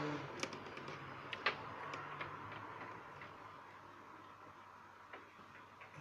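Light, irregular clicks and taps of a tablet being handled, its plastic edge and side buttons pressed under a thumb, over a faint steady tone.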